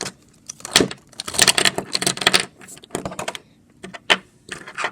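Small plastic glitter containers clattering and clicking together as they are handled and set down on a table, with a dense run of rattling clacks about a second in and scattered clicks after.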